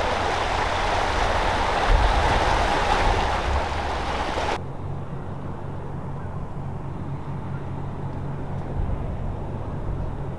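Wind and water noise. About four and a half seconds in, after a cut, it gives way to the steady low drone of a small police launch's engine running at speed over the water.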